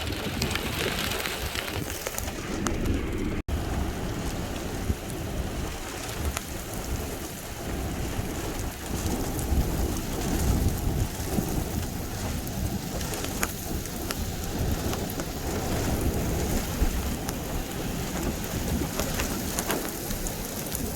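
Steady rain falling, with fine drop ticks over a low, fluctuating rumble. About three and a half seconds in the sound cuts out for an instant.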